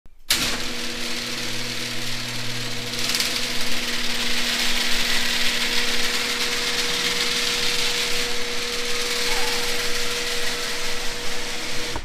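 A screw-drive garage door opener running a sectional garage door, with a steady motor hum and metal-on-metal noise from the drive, hinges and rollers. It is a fairly noisy door.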